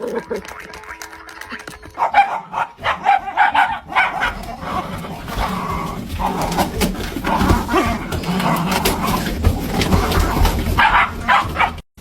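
A dog barking again and again, with music playing along.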